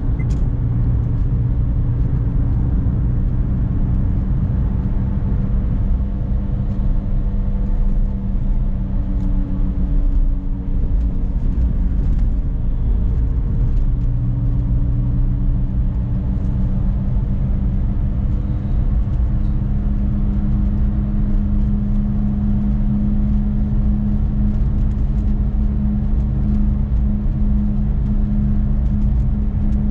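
Renault Clio Symbol's engine and road noise heard from inside the cabin while driving, a steady hum. The engine note changes a few times, about ten seconds in and again near fourteen seconds, and from about twenty seconds in the hum grows stronger.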